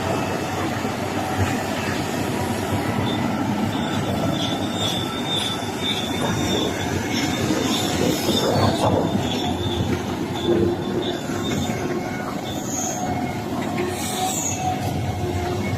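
Komatsu PC1250 hydraulic excavator working, its diesel engine and hydraulics running steadily under load, with high metallic squeals from steel parts rubbing over it.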